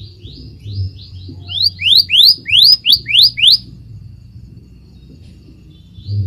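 Scarlet minivet calling: a run of short rising whistles, soft at first, then about seven loud ones at roughly three a second, stopping about three and a half seconds in.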